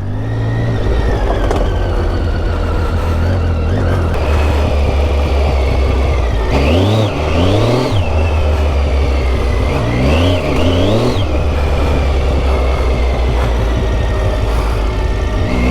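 Triumph Tiger 800's three-cylinder engine running under way, the revs climbing in short bursts twice about seven seconds in and again about ten to eleven seconds in.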